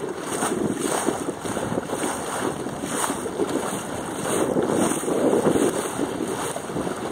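Wind buffeting the microphone of a mast-mounted camera on a small sailing dinghy, rising and falling in gusts, over the wash of choppy water.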